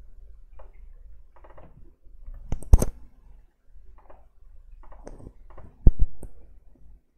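Sharp clicks of a computer mouse and keyboard close to the microphone: a loud pair a little under three seconds in and a quick cluster of three about six seconds in, with fainter clicks and rustles between.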